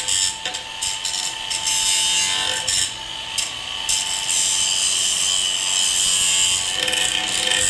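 Electric grinder running at speed with a steady high whine, its disc grinding against metal in uneven rasping passes that come and go.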